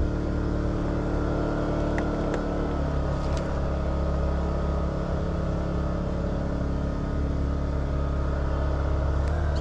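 Boat motor running steadily, with a shift in its pitch about three seconds in and a few faint clicks over it.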